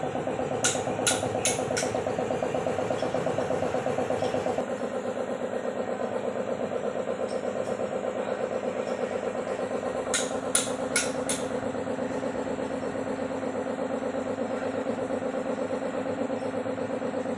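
Hitachi Zaxis 110 excavator's diesel engine running steadily, its note dropping slightly about four and a half seconds in. Two quick runs of four sharp clicks come about a second in and again about ten seconds in.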